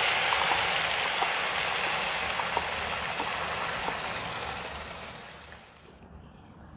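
Ground masala gravy poured into hot oil with whole spices in a kadai, sizzling loudly with scattered crackles. The sizzle dies down over about five seconds as the oil cools under the wet gravy.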